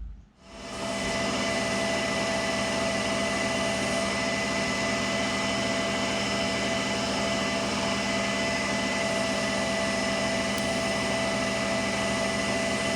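Metal lathe running steadily with a constant whine, taking a facing cut on a steel hydraulic fitting. It comes up about half a second in and holds even throughout.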